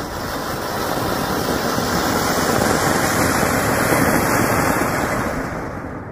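Large anar (flower-pot fountain firework) hissing as it sprays sparks, growing louder and then fading out near the end as it burns down.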